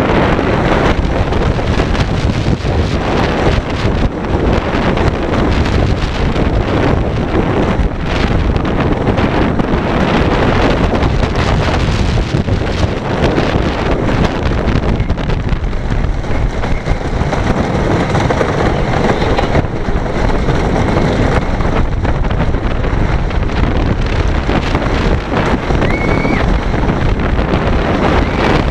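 Hoosier Hurricane wooden roller coaster train running along its wooden track at speed, with a continuous rumble and clatter. Heavy wind buffets the microphone on the open front seat.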